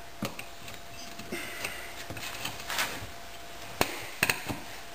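Scattered clicks and knocks of hand tools and metal parts being handled at the wheel, with a few sharper knocks about four seconds in.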